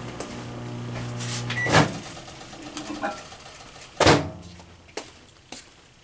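Microwave oven running with a steady hum that stops about two seconds in with a click and a short beep. A short tone follows, then a loud sharp knock just after four seconds and a few lighter clicks.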